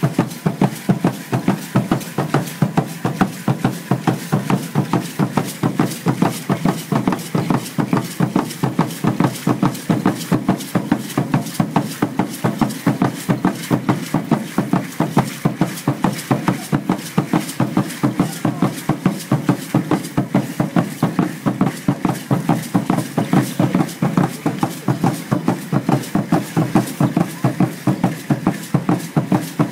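Aztec dance drumming, a steady, even beat that never lets up, with the shaking clatter of the dancers' seed-pod ankle rattles (ayoyotes) keeping time with their steps.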